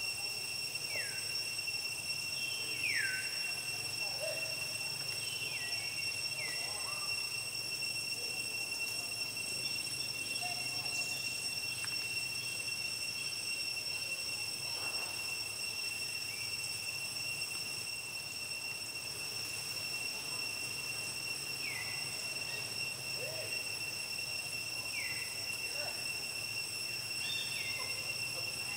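Insects, crickets, keep up a steady, high-pitched drone. Short chirps that fall in pitch come now and then: a few in the first seconds, a few more near the end.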